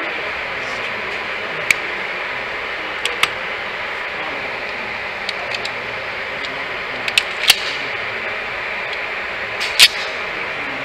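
Steady rushing hiss of an indoor range's ventilation. Scattered sharp clicks and knocks of pistols and magazines being handled come over it, the loudest near the end.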